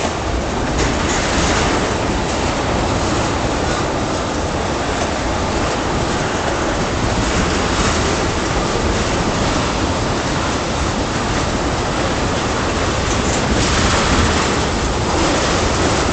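Freight train's black tank cars rolling past on curved track: a steady noise of steel wheels on the rails, with a few scattered clacks.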